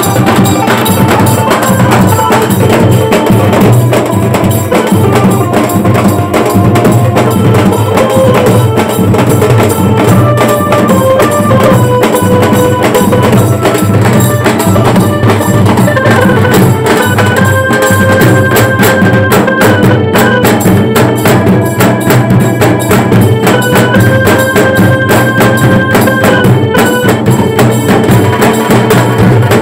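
Bengali wedding band party playing loud, dense, fast drumming, with a melody of held notes stepping up and down over it, recorded on a phone mic.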